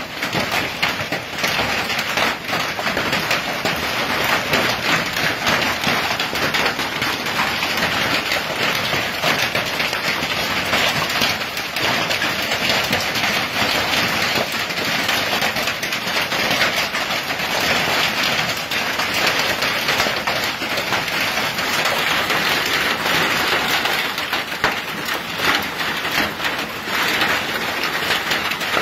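Hail falling hard with rain, pelting the roof overhead and the ground: a dense, steady clatter of countless small impacts that keeps up without a break.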